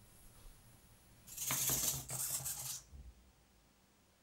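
Hobby servo motors in a small legged robot's joints whirring for about a second and a half as the robot lowers itself into a crouch.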